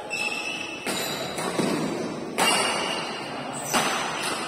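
Badminton rally: several sharp racket hits on the shuttlecock, each ringing on in the hall's echo, the loudest about halfway through, with a few short high squeaks of shoes on the court.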